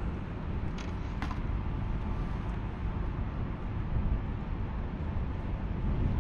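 Steady low rumble of wind buffeting the microphone, with two short clicks about a second in.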